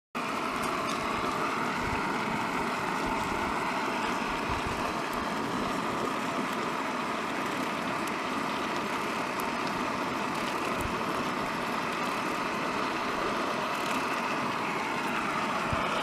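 MSR PocketRocket backpacking canister stove burning steadily under a pan, an even, unbroken hiss-roar of the gas flame.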